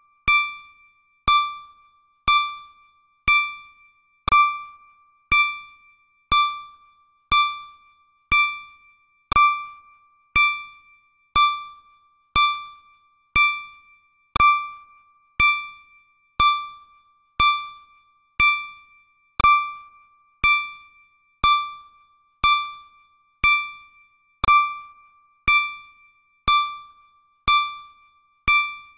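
Countdown timer sound effect: a short electronic ding once every second, each struck sharply and fading within about half a second, marking off the seconds.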